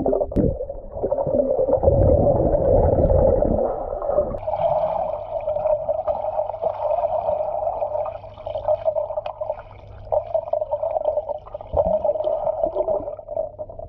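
Muffled underwater sound of a swimming pool picked up by a submerged camera: water churning and gurgling around the microphone. It is heaviest in the first four seconds, then settles into a steadier muffled drone.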